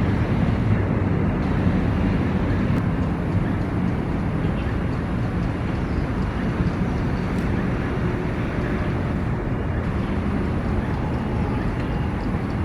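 Steady low rumble of outdoor background noise, like city traffic, with no distinct events.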